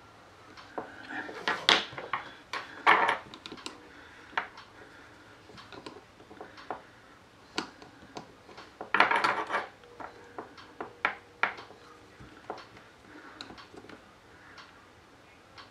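Small metal and plastic parts of a Crosman 357 pellet pistol clicking and scraping together as the latch support wedge is worked into the frame by hand. The clicks come irregularly, with a longer scraping noise about nine seconds in.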